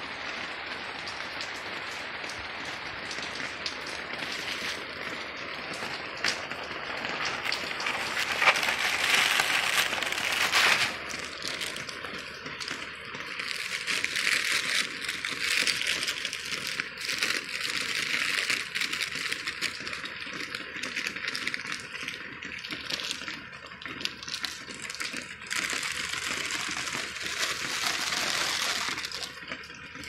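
Heavy rain falling and pattering on hard surfaces, a dense crackling hiss that swells and eases, heaviest about a third of the way in and again through much of the second half.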